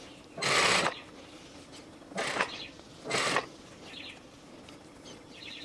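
Work at a home sewing machine on a seam: three short rustling bursts, with faint clicking between them.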